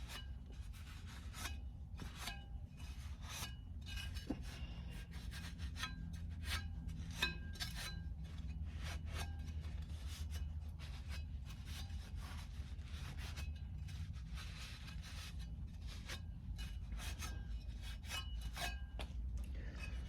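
Repeated short, irregular scraping and rubbing strokes as grime is cleaned off a dirty heater fan-motor part, over a steady low hum.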